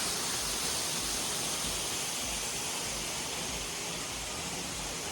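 Waterfall running: a steady rush of falling water.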